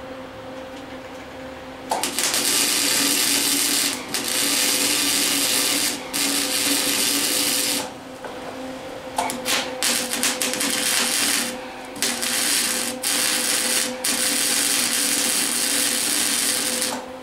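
Lincoln Handy MIG welder laying tack welds: bursts of arc crackle and sizzle about two seconds long with short breaks, choppy and sputtering in the middle, over a steady hum. The welder is faulty: the owner says it has been sparking instead of welding.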